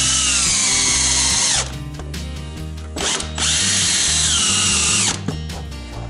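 DeWalt 20V cordless drill running in two bursts of about two seconds each, its motor whine climbing at each start and dropping as it stops, as it drives screws. Background music plays underneath.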